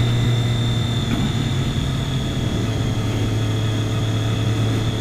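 Triumph Daytona 675R's three-cylinder engine running at a steady, even note while the motorcycle cruises along the road, with a hiss of road and wind noise underneath.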